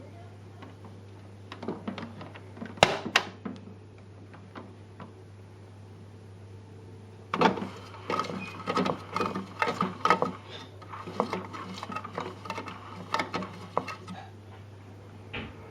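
Hard plastic clicking and clattering from a toy Klein Miele washing machine: two sharp knocks about three seconds in, then a dense run of rattling clicks for about seven seconds from midway, over a steady low hum.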